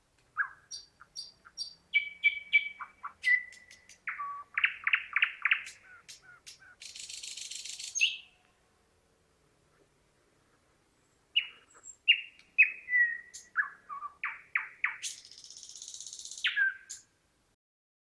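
Thrush nightingale singing two song phrases with a pause of a few seconds between them. Each phrase runs from sharp clicking 'tik' notes into loud, rapidly repeated notes and ends in a harsh buzzing rattle lasting about a second.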